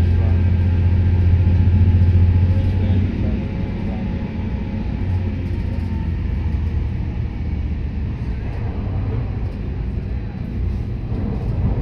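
Stadler GTW-D diesel-electric railcar heard from a seat right beside its engine compartment, the diesel engine running hard with a loud, steady, deep drone. About three seconds in the drone drops away and the level falls, leaving the rougher rumble of the railcar running at speed over the track.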